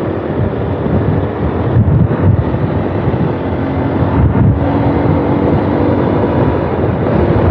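Honda CBF190X single-cylinder motorcycle engine running steadily at cruising speed, with wind noise on the rider's microphone.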